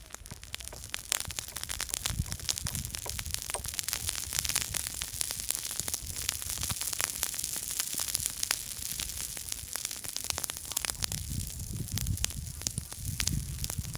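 Small campfire crackling: a dense run of sharp pops and snaps over a steady hiss, with low rumbling about two seconds in and again near the end.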